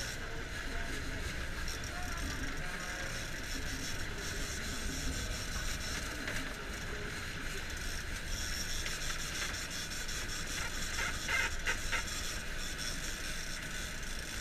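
Sport-fishing boat's engine running steadily under wind and water noise, with the mechanical winding of a big-game trolling reel under the load of a hooked fish. A few sharp clicks come about eleven seconds in.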